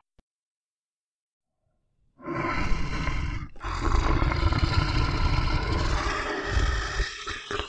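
Bear growling: after about two seconds of silence, a short rough growl, a brief break, then a longer growl of about four seconds that runs on past the end.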